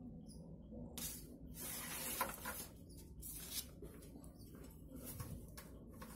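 Faint rustling and scratching of amplifier wires and a thin audio cable being handled, in irregular bursts starting about a second in, over a low hum.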